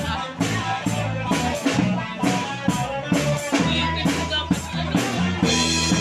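Dance music with a steady quick drum beat, about two and a half beats a second, over a bass line.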